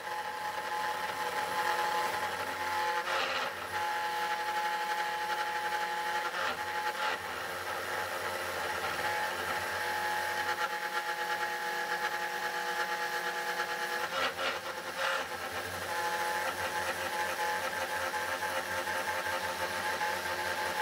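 CNC 3018 Pro Max router milling a copper-clad circuit board with a 30-degree V-bit: the spindle motor runs with a steady whine as the bit cuts isolation traces about 0.2 mm deep. The sound changes briefly a few times along the way.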